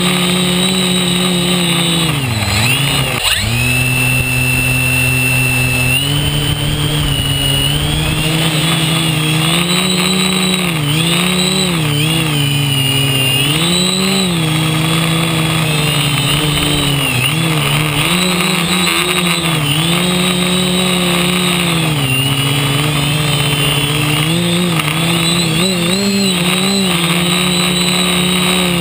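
Quadcopter's electric motors and propellers buzzing, heard from a camera on the frame; the pitch keeps rising and falling with the throttle, with a sharp drop and recovery about three seconds in.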